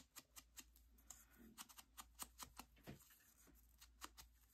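Faint, quick taps of an ink dauber being dabbed along the edges of a small paper cut-out, several irregular taps a second.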